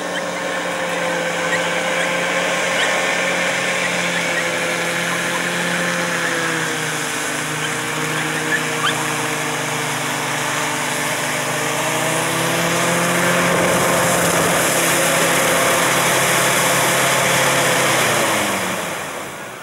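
RNLI rescue hovercraft running across the water, its engines and ducted fans giving a steady drone whose pitch dips and then climbs again. It grows louder as the craft comes in, then winds down and fades near the end as it settles on the beach.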